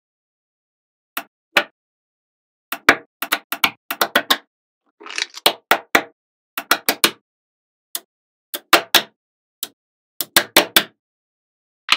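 Small neodymium magnet balls clicking sharply as blocks of them are set down and snapped into place against the structure, in quick clusters of clicks with silence between. About five seconds in, a short rattle as the balls shift against each other.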